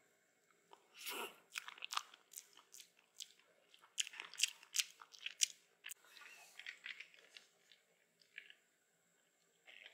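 A plastic spoon scooping soft, icy homemade ice cream from a small plastic ice cream maker cup, making a run of irregular crunches and clicks.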